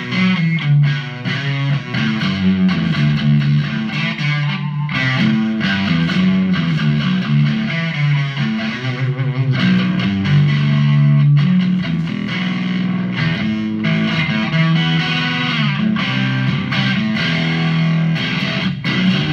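Electric guitar, a 1994 Peavey Predator Plus TR7, played continuously through a Marshall Code 25 amp on its Plexi preset: a lightly overdriven tone with reverb and a run of changing notes.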